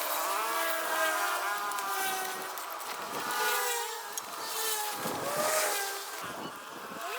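Small petrol engine running, its pitch rising and falling as the speed changes.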